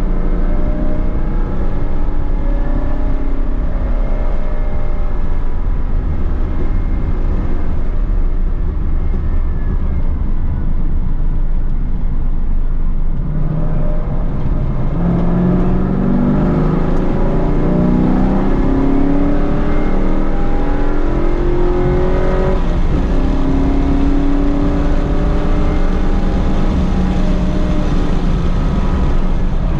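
Holden Commodore VE SS ute's V8 engine running hard under heavy wind and road rumble. From about halfway the engine pitch climbs repeatedly as it accelerates, drops back briefly, then rises again.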